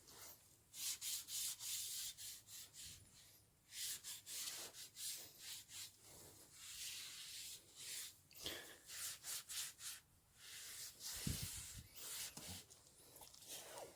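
Repeated short rubbing strokes against a surface, with a dull thump late on.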